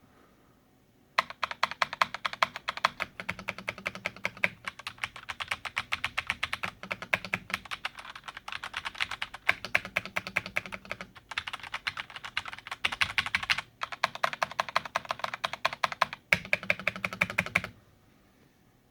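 Filco mechanical keyboard with Cherry MX Red linear switches typed on fast, hard and at random: a dense clatter of keys bottoming out. It starts about a second in, stops shortly before the end, and has a few brief pauses.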